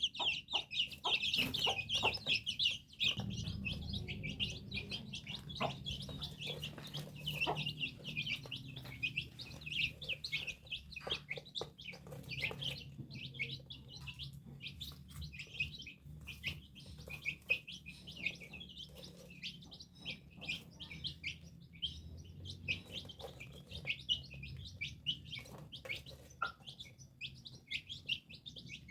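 Small birds chirping rapidly and continuously in high-pitched peeps, with a low steady hum underneath from about three seconds in.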